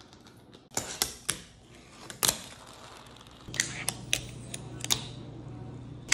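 Fingerboard popping and landing on granite and stone: sharp separate clacks of the small board's deck and wheels striking the hard surface. A low steady hum begins about halfway through, and the clacks come in a quicker run after it.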